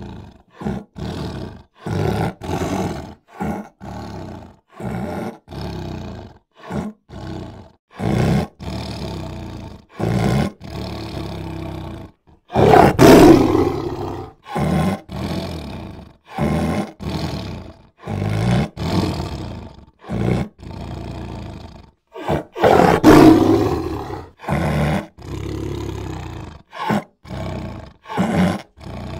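Big-cat roars in a quick run of short, chopped bursts with brief silences between them, and two longer, louder roars, one near the middle and one about four-fifths of the way through.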